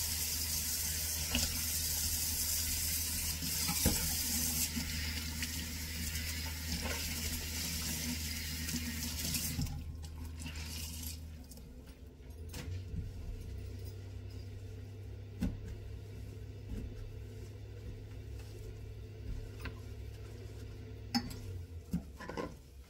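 Kitchen mixer tap running into a stainless steel sink while a cloth is rinsed under the stream. The water shuts off about ten seconds in. After that comes quieter rubbing as the cloth wipes the steel sink, with a few light knocks.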